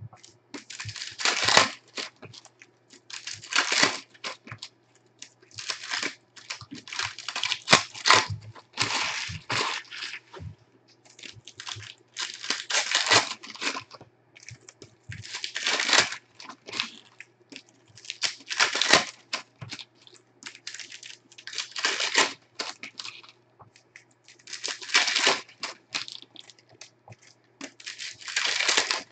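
Foil trading-card packs being torn open and crinkled by hand, with the cards inside handled and stacked, in short noisy bursts every second or two.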